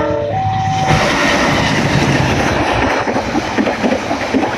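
Express passenger train passing close by. The diesel locomotive's horn ends its chord, then holds a single note, within the first second. From about a second in, the locomotive and coaches rush past with loud rolling wheel noise and rapid clatter.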